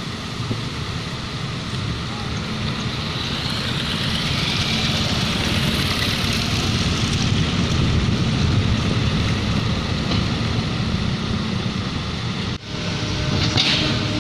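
Steady diesel engine rumble of a Kobelco SK75 excavator at work, mixed with a dump truck and motorbikes driving close by. The noise swells over a few seconds as the truck approaches, then drops out suddenly near the end and comes back.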